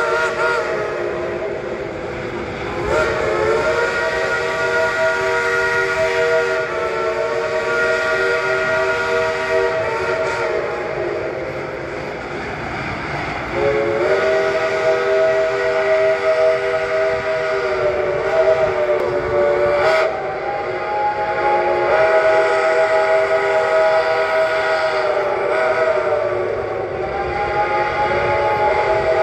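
Steam locomotive's chime whistle sounding several notes at once in long blasts: one ending just after the start, one from about three to ten seconds in, then a long blast from about fourteen seconds whose pitch sags and rises a little at times. Steam hiss runs underneath.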